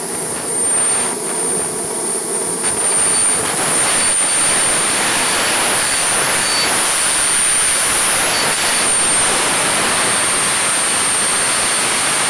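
Swiwin SW220B model jet turbine running steadily at idle: a loud rushing hiss with a constant high-pitched whine.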